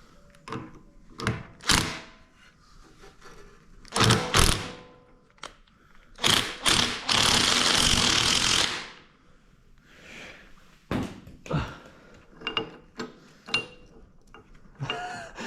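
Metal tool knocks, clicks and clunks as a bearing puller is worked onto a seized pulley on a drill press spindle. About seven seconds in comes a loud, dense, noisy burst lasting about a second and a half.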